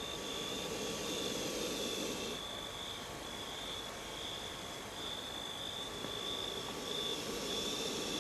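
Night insects, crickets or similar, chirping: a steady high-pitched note pulsing about one and a half times a second. A rushing noise swells up at the start and again near the end.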